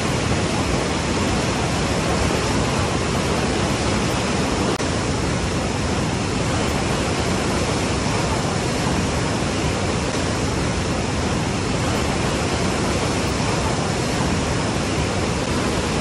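Huka Falls: the Waikato River's white water rushing through a narrow rock chute, a loud, steady, unbroken rush of water.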